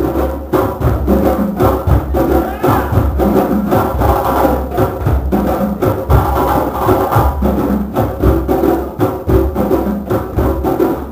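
A drum circle playing hand drums together in a dense, steady ensemble rhythm, with deep bass strokes under quicker higher strokes.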